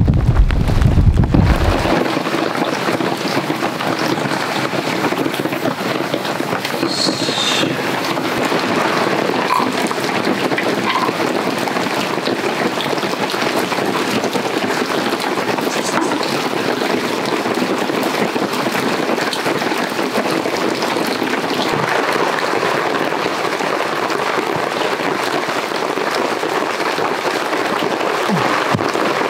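Heavy rain falling steadily, an even hiss throughout. A low wind rumble on the microphone dies away about two seconds in.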